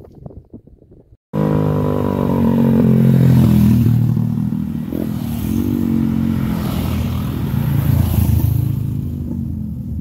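Small motorcycles riding past close by on a narrow path, their engines running loudly, with the pitch shifting as they come and go. The engine sound starts abruptly about a second in, after a moment of faint wind.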